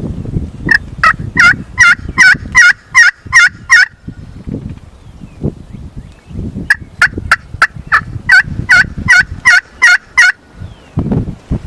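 Turkey yelping: two loud runs of evenly spaced yelps, about three a second, the first about nine notes long and the second, after a pause of about three seconds, about eleven, over low wind or rustling noise.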